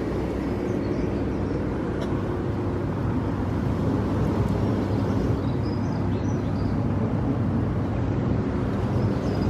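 Hot tub jet pump running: a steady motor hum with the water churning and bubbling.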